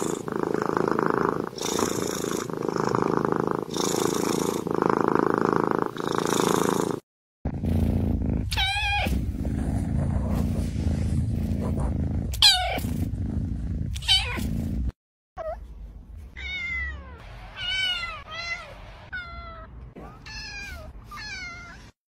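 Domestic cat purring in steady in-and-out cycles, swelling about every two seconds. Then a cat meows three times over a low rumble, followed by a quicker series of shorter, fainter meows.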